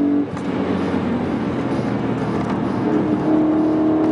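E92 BMW M3's V8 engine heard from inside the cabin at speed on track. Its steady note gives way to loud road and wind noise shortly after the start, then comes back about three seconds in, rising slightly in pitch.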